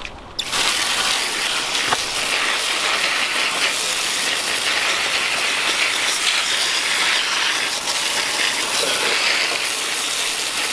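Garden hose pistol-grip spray nozzle jetting water onto a car's front-mounted intercooler, a steady hiss that starts suddenly about half a second in.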